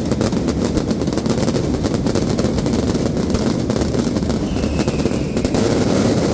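Fireworks going off overhead: a dense, rapid crackling and popping of rising spark trails and crackling stars over a continuous low rumble.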